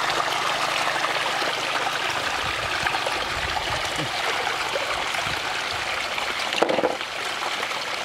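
Shallow water flowing and trickling steadily around hands working through it at the bottom, with a short louder splash about two-thirds of the way in.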